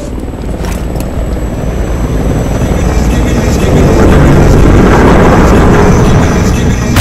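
Helicopter rotor and engine noise: a low, steady roar that grows louder over the first four seconds, then holds.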